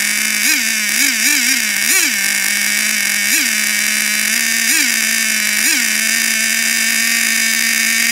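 Traxxas Nitro Rustler's nitro glow-fuel engine running on its own just after being drill-started, blipped up in revs about eight times in the first six seconds and then idling steadily.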